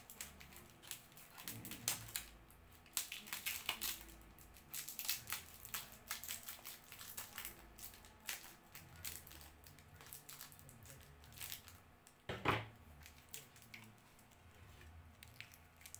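Plastic wrapping crinkling and crackling in a scatter of sharp crackles as a taped plastic-wrapped bundle is turned over and unwrapped by hand, with one brief louder sound about twelve seconds in.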